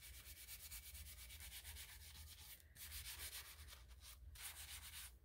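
Faint, fast back-and-forth scrubbing of a small abrasive pad on an epoxy-coated tumbler, wearing the glossy epoxy down to a matte finish, with two brief pauses.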